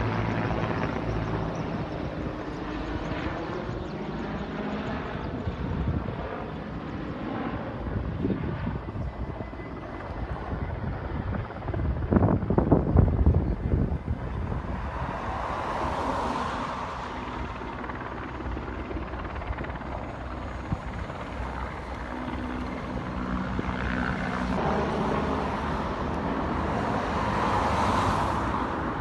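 Engines of firefighting aircraft flying over a forest fire, with a steady drone that swells and fades as they pass. There is a louder rush about twelve seconds in.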